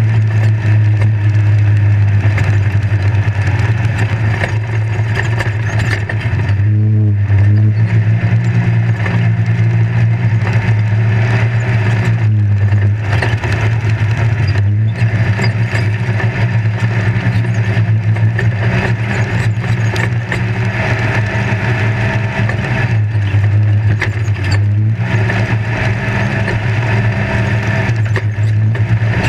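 Off-road race vehicle's engine running hard under way, heard from inside the open roll-cage cab together with rattling and terrain noise. The engine note drops and picks back up several times, around 7, 13, 15 and 24 seconds in.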